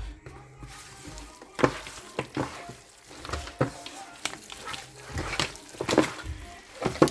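Chicken pieces frying in a pan, sizzling, with irregular sharp clicks and knocks spread through.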